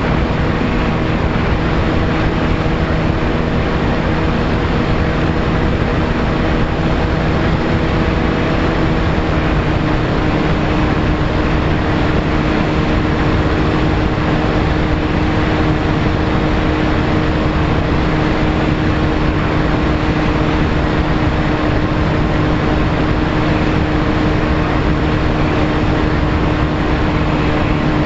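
A model aircraft's motor and propeller running at a steady hum, heard from the onboard camera under heavy wind rushing over the microphone. The hum's pitch shifts slightly about nine seconds in.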